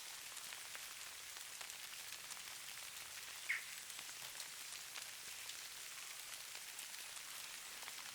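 Steady patter of falling precipitation: many fine ticks over a soft, even hiss. One short, high chirp about three and a half seconds in is the loudest moment.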